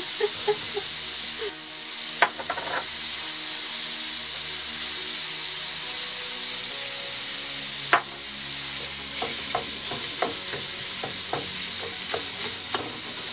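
Ground pork frying in a pan, with a steady sizzle throughout. Scattered knocks and scrapes of a wooden spatula stirring the meat come more often in the last few seconds.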